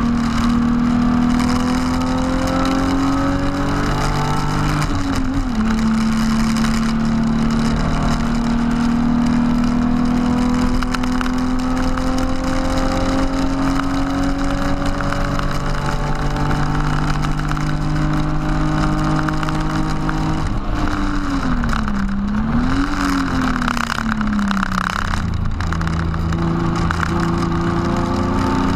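BMW E36 328i straight-six engine at full throttle on track, heard inside the stripped cabin. It revs up, shifts up once about five seconds in, then pulls steadily up through the next gear for a long stretch. About two-thirds of the way through the revs drop in steps, with a quick rise and fall between, as the car brakes and shifts down for a corner. Near the end the engine picks up again.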